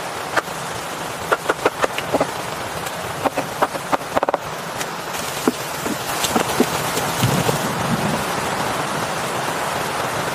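Steady rain falling, with heavy drops plinking one after another, bunched in quick runs in the first half.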